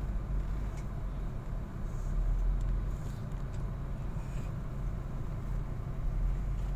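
Large truck engines idling in a queue, a steady low rumble, with a few faint short hisses.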